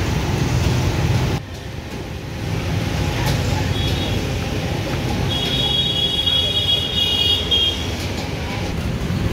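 Gas wok burners running steadily under the woks of a restaurant kitchen, cut off suddenly about a second in and replaced by a steady, quieter hum of street traffic and dining-room ambience. A high, thin squealing tone sounds for about two seconds in the middle.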